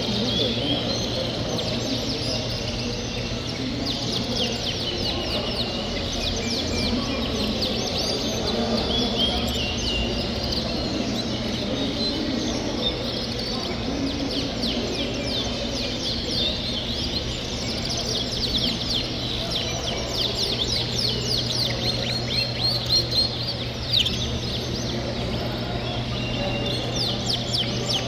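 Many Yorkshire canaries singing and chirping together in show cages: fast overlapping chirps and trills that get busiest in the last third, over a steady low hum.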